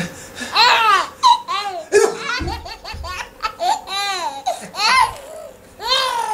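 High-pitched laughter of a small child, a string of short squeals that each rise and fall in pitch, about two a second.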